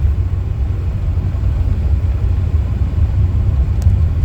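Steady low rumble of a car driving on the road: tyre and engine noise.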